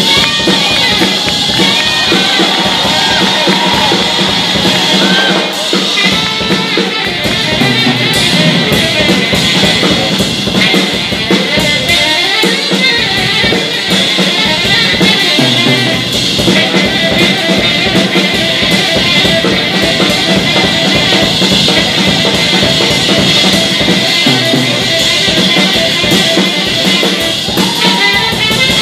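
Live jazz: a tenor saxophone plays a melodic line over busy drum-kit playing with bass drum and snare, continuously and loud.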